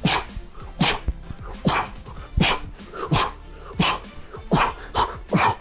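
A man's sharp, forceful exhales with short grunts, about three every two seconds, in time with fast explosive knee drives in a high plank.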